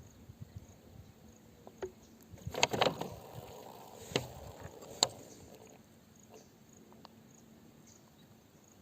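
A few sharp knocks and clicks: a quick cluster with some scraping about two and a half seconds in, then two single sharp knocks about a second apart.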